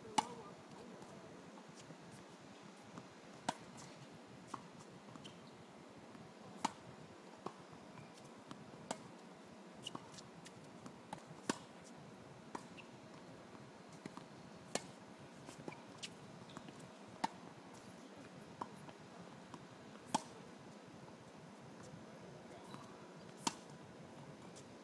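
Tennis balls struck by rackets in a ground-stroke rally, each hit a sharp pop, with fainter bounces and far-court hits between them. The loudest hits come about every three seconds, over a low steady hiss.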